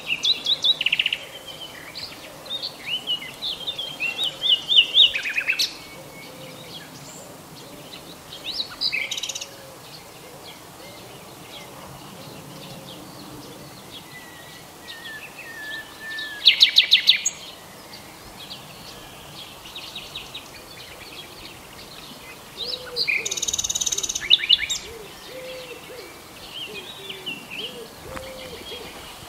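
Wild songbirds singing and calling over one another, short whistled phrases and chirps with loud, rapid trills now and then; faint low wavering calls sound underneath in the second half.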